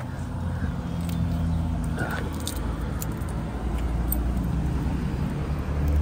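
A motor vehicle's engine running with a steady low hum that grows louder near the end, with a few light clicks over it.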